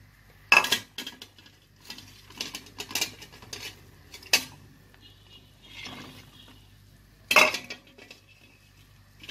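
Long metal spoon stirring sliced okra in a pot of liquid, knocking and scraping against the pot: scattered sharp clinks, the loudest about half a second in and again near the end.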